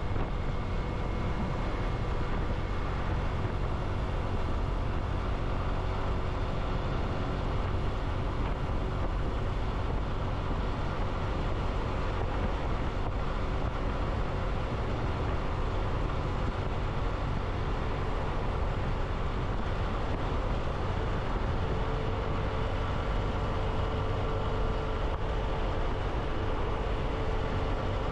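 Motorcycle on the move at a steady pace: its engine running evenly under a constant rush of road noise, with no changes in speed or sudden sounds.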